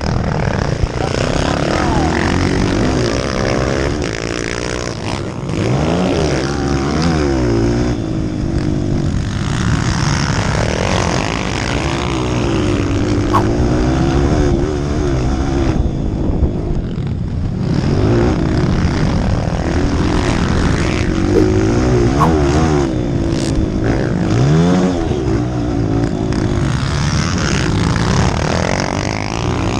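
Honda CRF230 four-stroke single-cylinder dirt bike engine, heard from on the bike, revving up and falling back again and again as the throttle is opened and closed through corners and straights, with wind rushing over the microphone. The revs drop off briefly about halfway through, then climb hard again.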